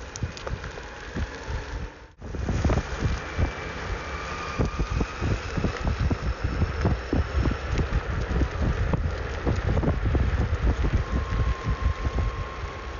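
Electric skateboard riding on an asphalt path: the low rumble of the wheels, with many small knocks from bumps in the surface and wind buffeting the moving microphone. A faint electric-motor whine runs underneath. The sound drops out briefly about two seconds in.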